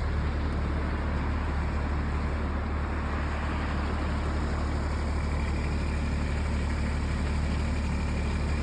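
Mini excavator's diesel engine running steadily with a deep hum. A faint high whine joins about five seconds in.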